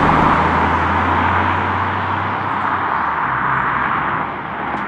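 Ford Puma ST-Line X driving past and away, its engine and tyre noise loudest at the start and slowly fading as it recedes.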